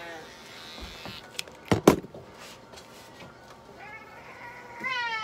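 A long-haired cat meowing while held down on an exam table: one meow trails off at the start and a longer, wavering meow begins about four seconds in. About two seconds in come a few sharp knocks, the loudest sounds.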